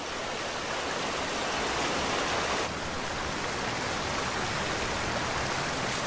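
Steady rushing of a swollen river running high with autumn rain.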